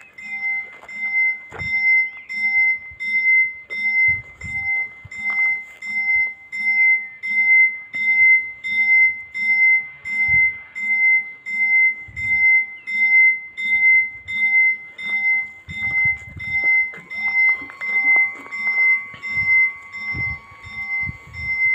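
Italian level-crossing warning bell ringing, a bright ding repeated about twice a second without a break. About 17 seconds in, a rising whine settling to a steady tone joins it as the barrier motor lowers the booms.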